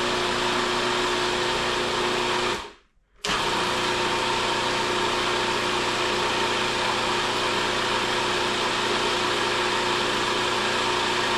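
Food processor motor running steadily while mixing flour and eggs into pasta dough, still crumbly and not yet come together in a ball. It cuts out for about half a second between two and three seconds in, then starts up again.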